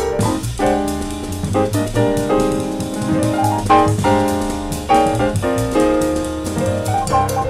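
Jazz piano trio playing: piano chords over bass and a drum kit with cymbals.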